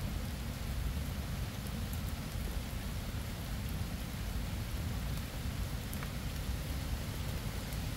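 Steady rain falling, with a constant low rumble beneath it and a few faint drop ticks.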